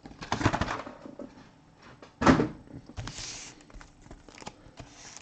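Cardboard trading-card boxes and cards being handled on a table: a few light knocks and clicks, one sharper knock about two seconds in, and a brief soft rustle about a second later.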